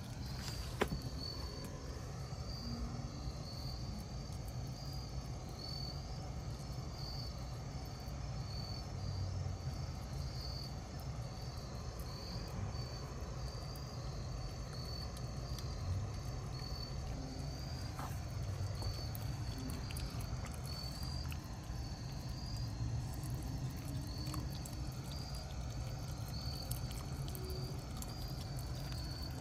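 Crickets chirping in a steady, evenly repeated high pulse over a low outdoor rumble. A sharp click comes about a second in, and a few faint clicks come later from a puppy chewing.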